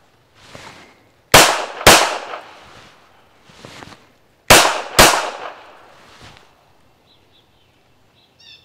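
Canik Mete SF 9mm pistol firing two controlled pairs: two quick shots about half a second apart, then a second pair about three seconds later. Fainter pops come between the pairs, and birds chirp near the end.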